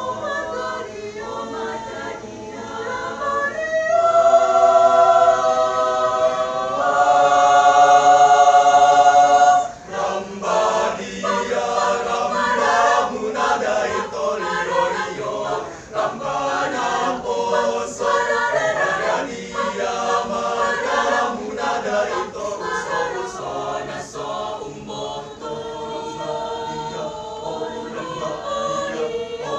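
Mixed choir of men and women singing: loud held chords about four to ten seconds in that cut off sharply, followed by quicker, more rhythmic passages.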